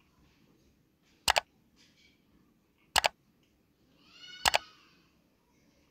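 Three sharp mouse-click sound effects, each a quick double click, about a second and a half apart, from a subscribe-button animation. The last click comes with a short ringing tone.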